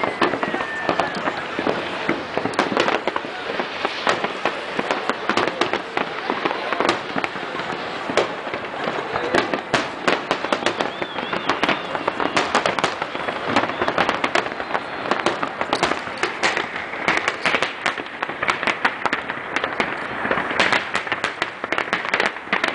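Aerial fireworks display: a rapid, continuous barrage of bangs and crackling shell bursts, with no break.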